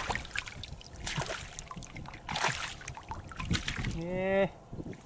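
Hands sloshing and splashing through shallow muddy water, in a few short splashes about a second apart, while feeling in the mud for fish. About four seconds in, a man gives a short voiced hum.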